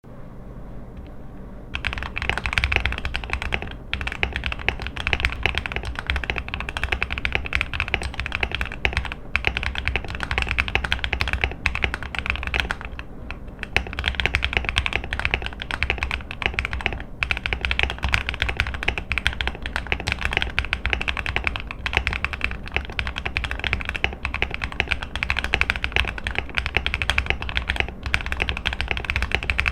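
Rapid typing on a Fantech Maxfit61 mechanical keyboard with KTT Strawberry linear switches: a dense run of keystroke clacks that starts about two seconds in and breaks off briefly a couple of times.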